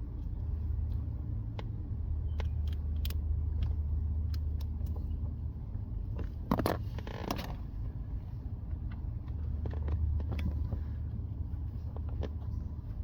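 Car engine idling, a steady low hum heard from inside the cabin, with scattered small clicks from fuses being handled in the fuse box and a louder rustling scrape about six and a half seconds in.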